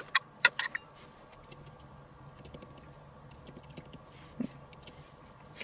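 A metal spoon clinking against a stainless steel bowl: a few sharp taps in the first second, then only faint small ticks.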